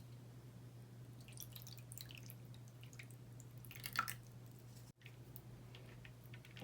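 Hands squishing and poking slime: faint wet clicks and crackles, with one louder squelch about four seconds in, over a steady low hum.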